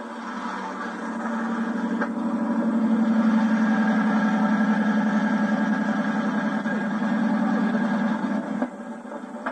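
Car engine running at steady revs, growing louder over the first few seconds, holding, then dropping away near the end.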